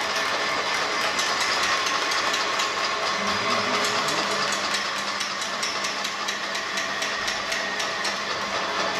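Many pots and pans being beaten with spoons from balconies across the neighbourhood, a dense, unbroken metallic clatter of countless overlapping strikes: a pot-banging noise protest.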